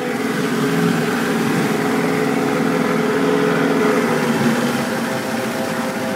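Speedboat engine running at low speed, a steady drone.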